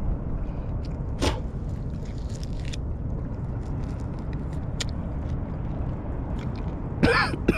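Steady low rumble of wind on the microphone, with small wet mouth sounds of a man sucking and chewing an orange, peel and pulp included; a short slurp about a second in and a louder one near the end.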